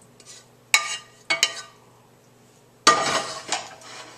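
A wooden spatula knocks against a frying pan a few times as the vegetables are scraped out into a bowl. About three seconds in comes the loudest sound, a sudden metal clank with a short ring, as the pan is set back down on the stove.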